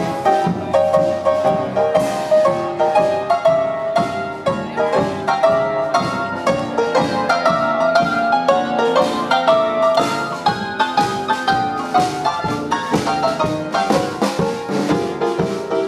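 Live band music with an upright piano playing many quick notes throughout.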